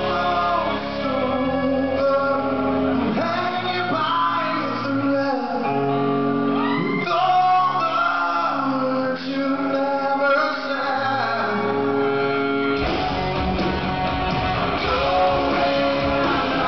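Live rock band playing a ballad with a male lead singer, heard in a large hall. The bass and drums drop away about three seconds in, leaving voice and guitar, and the full band comes back in near the end.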